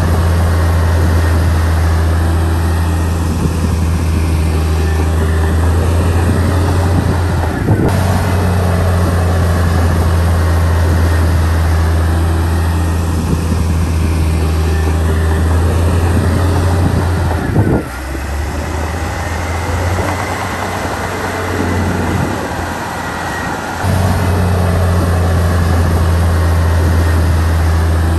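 Heavy diesel engine of earthmoving machinery running with a steady low drone. About two-thirds of the way through it turns lower and quieter for several seconds, then returns to the full drone.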